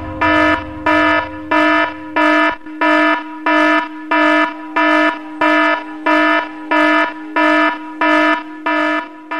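Electronic alarm buzzer sounding in a steady on-off pattern, about four harsh buzzing beeps every three seconds. A low rumble under the first two seconds stops.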